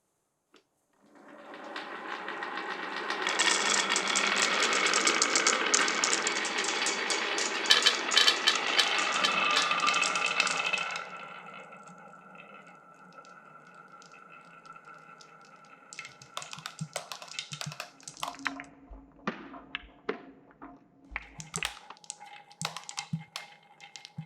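Glass marbles rolling along a wooden and plastic marble run: a loud, continuous rolling rumble dense with fast clicks starts about a second in and fades out around eleven seconds. After that come fainter rolling and scattered clicks and knocks as marbles drop and strike the track.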